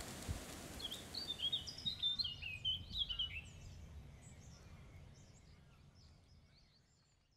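A bird calling a quick run of short, high chirps for a couple of seconds, over a low outdoor rumble. The whole sound fades out near the end.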